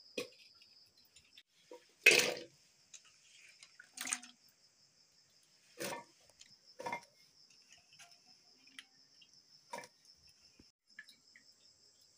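Wet, chopped chayote squash cubes handled and scooped by hand into an aluminium pressure cooker: about six short splashes and clatters, the loudest about two seconds in. A steady high cricket chirping runs behind.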